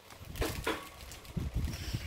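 Clear plastic packaging crinkling and rustling as it is handled, with a few short crackles and light knocks.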